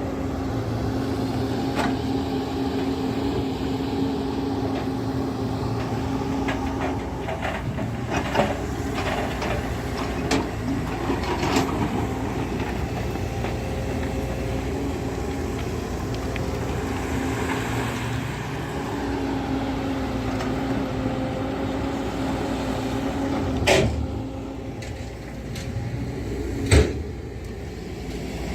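An engine running steadily at a constant speed, with a few sharp knocks and clanks scattered through it, the loudest near the end.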